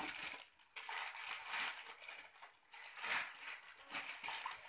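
White packing wrap crinkling and rustling as hands pull wrapped parts out of a cardboard box, in an uneven run of handling noise.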